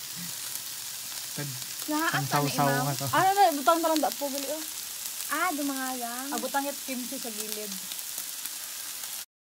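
Slices of pork belly sizzling on a tabletop grill pan: a steady hiss with fine crackling, which cuts off abruptly near the end.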